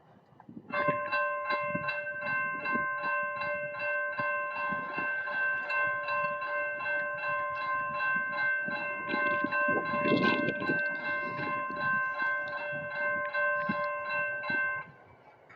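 Amtrak locomotive's multi-chime air horn sounding one long continuous blast. Several steady tones ring together as a chord, starting about a second in and cutting off suddenly near the end, after roughly fourteen seconds.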